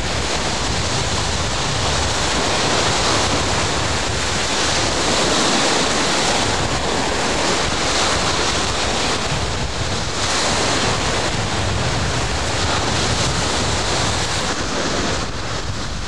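Sea waves slapping and washing around a small boat in choppy water, swelling and easing every few seconds, with wind rumbling on the microphone. The sound eases slightly near the end.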